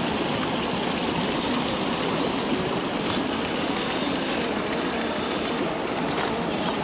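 A stream running steadily with a constant rushing hiss, and a few faint clicks.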